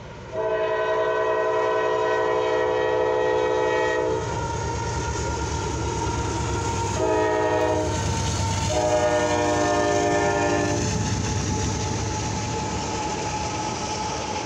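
Norfolk Southern diesel locomotive's multi-chime air horn sounding a long blast, a short one and another long one: the end of the grade-crossing signal. Under and after the horn, the train passes close with a steady rumble and wheel clatter on the rails.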